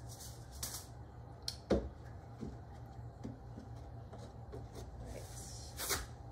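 Gloved hands knocking and rubbing against a wooden planter box: scattered soft knocks, the loudest about two seconds in and another near the end, over a steady low hum.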